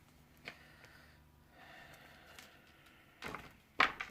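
Tarot cards being handled: a soft click about half a second in, then a short rustle a little after three seconds and a sharper slap near the end, the loudest sound here.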